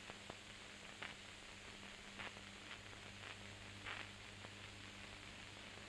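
Faint steady hiss with a low electrical hum and a few scattered soft clicks and crackles: background noise of an old recording with nothing else heard.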